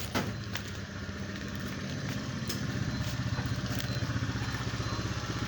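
Motorcycle engine running steadily nearby, growing a little louder partway through, with a few light clicks.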